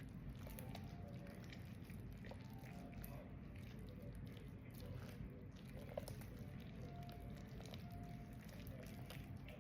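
Buttery slime, made of Elmer's school glue and activator with soft modeling clay, being squished and kneaded by hand: faint sticky squelches and small clicks over a steady low hum.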